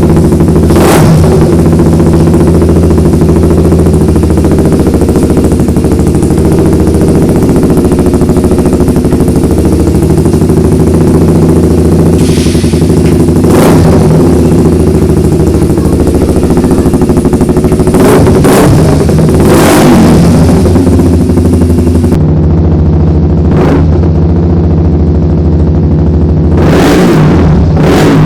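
Honda CBR150's single-cylinder four-stroke engine idling through an aftermarket dual trioval stainless muffler, very loud, with several short, sharp throttle blips spread through it.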